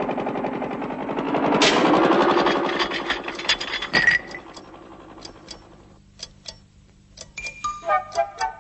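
Cartoon sound effect of a wind-up alarm clock ringing: a loud rapid mechanical rattle that swells and then stops with a sharp click about four seconds in. Scattered ticks follow, and a few music notes come in near the end.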